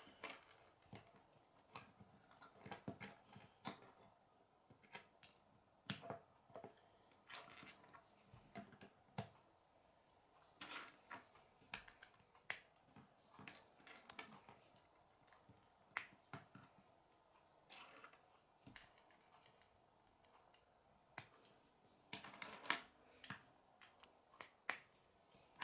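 K'nex plastic rods and connectors being handled and clicked together by hand: faint, irregular sharp snaps and small plastic clicks, bunching together near the end.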